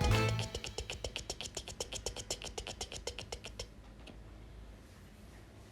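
Music ends just after the start. Then comes a rapid, even run of small clicks, about a dozen a second, that fades away over some three seconds.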